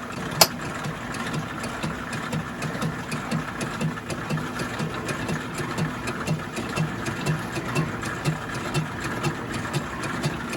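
1944 Logan 210 metal lathe running and taking a cut on a square block of mild steel in a four-jaw chuck, with a regular low thump about twice a second. A sharp click about half a second in.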